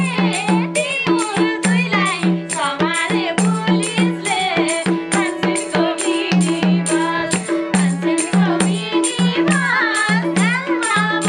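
Nepali dohori folk song performed live: a voice singing a gliding melody over a harmonium, madal drum and small hand cymbals that strike a steady, quick beat.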